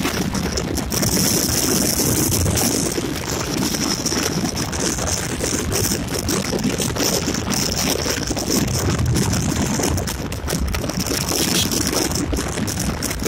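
Steady road noise of a Yamaha Gladiator, a 125 cc single-cylinder motorcycle, riding along at speed: the engine running under constant load with wind rushing over the microphone.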